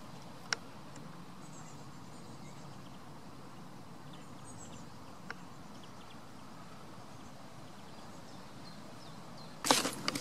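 Steady outdoor background noise with a couple of faint bird chirps and an occasional click. Near the end, loud irregular scuffs and knocks close to the microphone as a goat comes right up to it.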